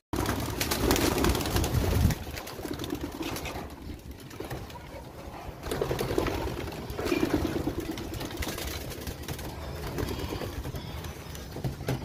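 Homing pigeons at a loft cooing low in several separate spells, with wings flapping as birds take off from the cage.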